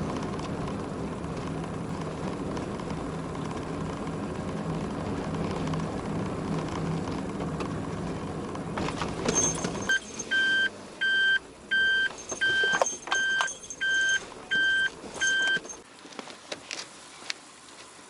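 A car engine running steadily, then switched off about ten seconds in. About eight short, evenly spaced electronic beeps from the car follow, with a few clicks.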